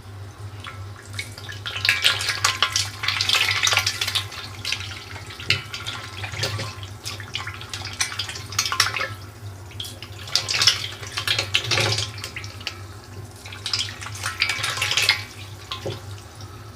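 Catfish crowded in a barrel splashing and snapping at the water surface as they take feed, a crackling sound like a frying pan, coming in several bouts with lulls between. A steady low hum runs underneath.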